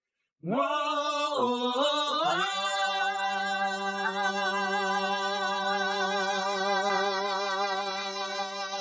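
Wordless singing: a voice enters about half a second in with sliding pitch, then settles into one long held note with vibrato over a low steady tone.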